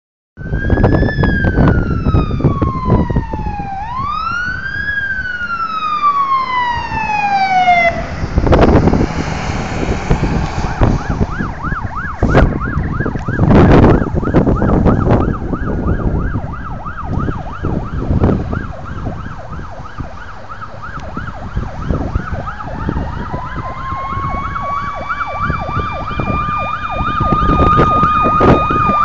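Fire truck sirens responding: a wail that slowly falls and rises, then a fast yelp, while a second siren winds slowly up and holds its pitch near the end. Loud rushing bursts of vehicle noise come a couple of times in the middle.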